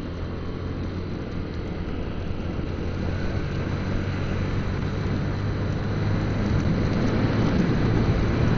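Motorcycle riding: the engine's steady low hum under wind and road noise on the rider's microphone, growing steadily louder.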